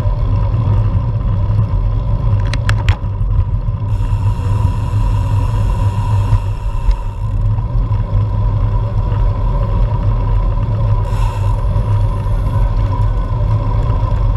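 Steady rumble of road vibration and wind on a bike-mounted GoPro action camera as a road bike rides uphill, with a couple of sharp clicks about two and a half seconds in.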